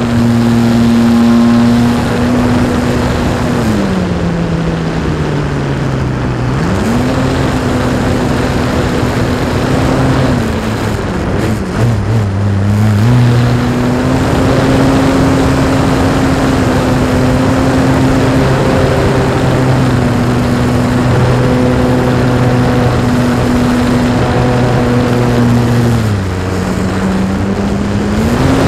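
Electric motor and propeller of a radio-controlled Pitts Special model biplane, heard from the onboard camera. Its drone falls and rises with the throttle through aerobatics: it eases off a few seconds in, comes back up soon after, dips briefly around the middle, and eases off again near the end. Wind rushes over the camera throughout.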